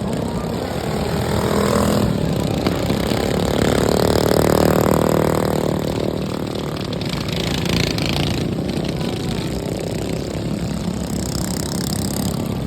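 Modified racing lawnmower engines running at speed. One passes close, growing louder a couple of seconds in and fading again after about six seconds.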